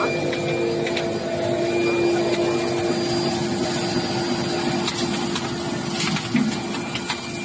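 Optical sorting machine running: a steady machine hum with a held tone, over scattered sharp clicks and rattles.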